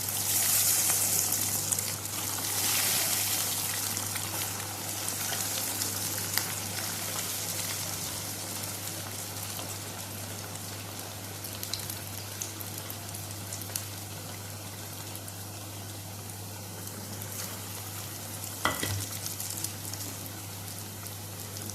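Breaded chicken nuggets deep-frying in very hot oil: a dense sizzle, loudest in the first few seconds, then gradually settling lower. A single light click comes near the end.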